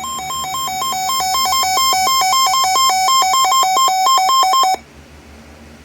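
Electronic emergency alert tone that opens an EAS warning broadcast: a buzzy beeping that switches rapidly and irregularly between two pitches, growing louder, then cutting off abruptly near the end to leave a low hiss.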